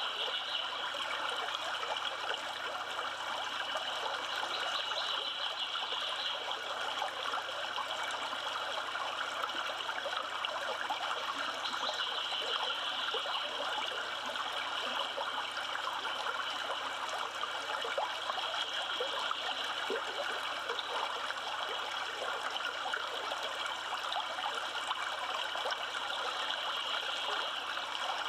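Yellowstone River flowing: a steady rush of running water.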